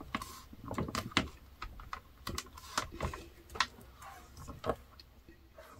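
Scattered light taps and clicks of hands pressing and patting on a stamping tool's clear acrylic plate, then the hinged plate being lifted open. The taps come at an irregular pace.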